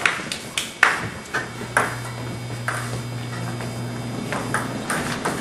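Table tennis ball clicking off the paddles and table in a rally: sharp, irregular ticks with short gaps between them. A low steady hum comes in a little over a second in.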